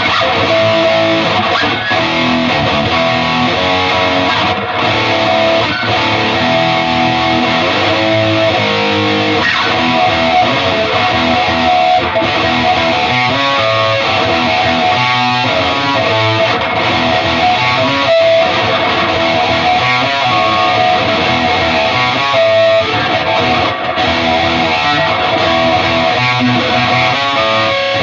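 High-gain distorted electric guitar playing riffs through a Peavey 6505 MH amp head into a Mesa 2x12 speaker cabinet.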